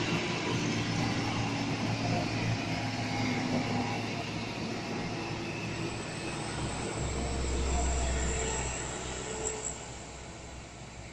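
Diesel tanker truck passing close by and pulling away, its engine drone and tyre noise fading as it recedes. A low rumble swells about seven seconds in.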